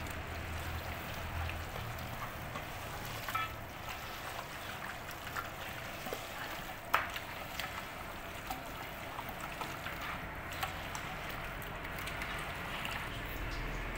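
Wet squelching of a bare hand mixing yogurt into spice-marinated chicken pieces in a metal pot, with a few short sharp clicks, the clearest about seven seconds in.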